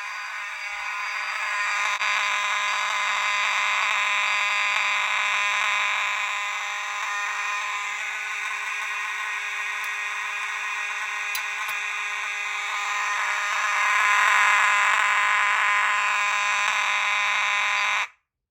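Simplex 4903-9219 fire alarm horn sounding continuously, a steady buzzing tone with no pauses and the slightly scratchy character the owner says is normal for this horn. It is running on filtered DC from a Potter PFC-6006B panel's notification circuit, not full-wave rectified current. It cuts off suddenly near the end.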